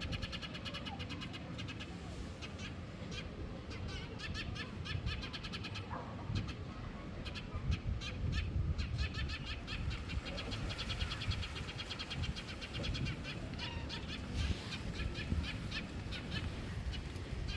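Small birds chirping in quick repeated trills throughout, over a steady low rumble.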